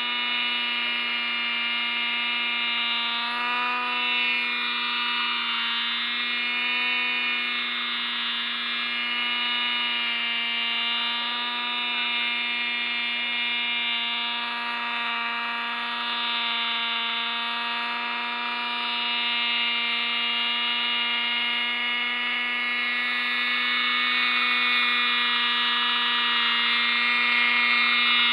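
O.S. .28 two-stroke glow (nitro) engine of a 1980 GMP Cricket RC helicopter running steadily in a low hover: a high-pitched buzz whose pitch wavers slightly, growing a little louder near the end.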